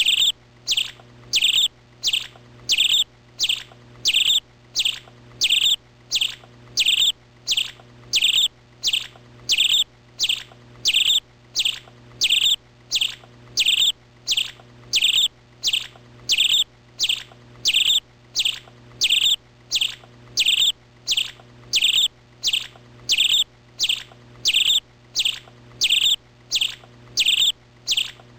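A bird chirping one short, high, downward-sliding call over and over at an even pace, about three calls every two seconds, with a faint steady low hum underneath.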